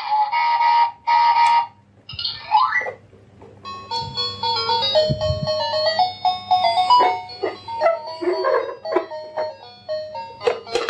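A simple electronic jingle of short, stepped beeping notes, ice-cream-van style, over scattered sharp clicks. It opens with a chopped high electronic tone, then a rising glide about two seconds in, before the tune starts about four seconds in.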